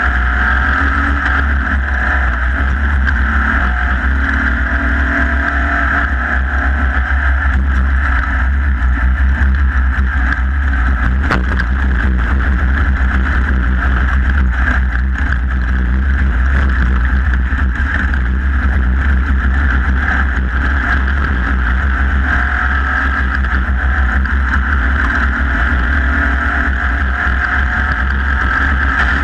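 Off-road race vehicle's engine running steadily at speed, heard from onboard, with one sharp click about eleven seconds in.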